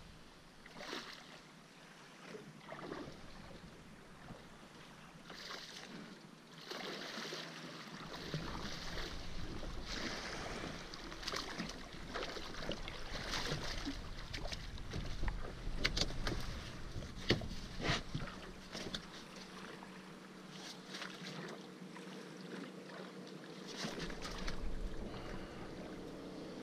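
Water splashing and sharp knocks as a hooked striped bass is drawn alongside a small boat and lifted aboard by hand. The knocks are loudest midway through.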